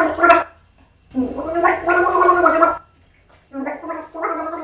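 A woman gargling a mouthful of water while singing a tune, so the melody comes out as a bubbling, wavering hum in phrases: a long phrase about a second in, then two shorter ones near the end.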